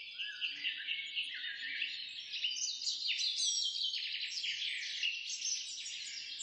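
Birds chirping and calling together in a dense chorus of short, falling notes.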